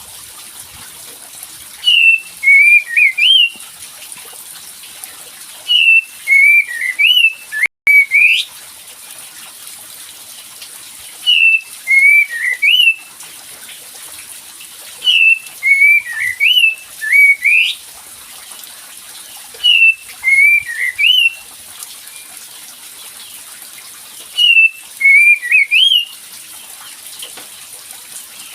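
Kapas tembak songbird song played as a looped lure recording: short phrases of quick, chirpy whistled notes sliding up and down, each about a second and a half long and repeating every four seconds or so, over a steady hiss. It is a call meant to set a reluctant kapas tembak singing in reply.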